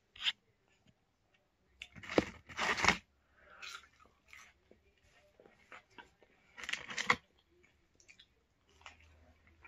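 Close-miked crunching bites and chewing of fried food, in a few loud bursts: the biggest about two to three seconds in and again about seven seconds in, with fainter chewing between.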